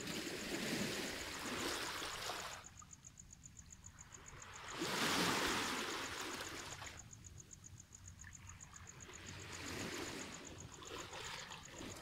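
Small waves washing in over a pebble beach, three times, each swell rising and falling over two or three seconds, the middle one the loudest. A steady, rapidly pulsing high insect trill runs behind the waves.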